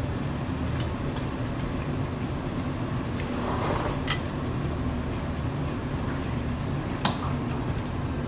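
Broth slurped from a small ceramic bowl, a short noisy slurp about three seconds in, with a few sharp clinks of metal chopsticks against the bowls over a steady low hum.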